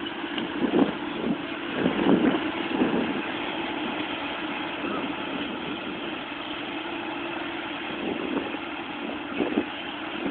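Vehicle engine idling with a steady, even hum, broken by a few short bursts of louder rumbling noise.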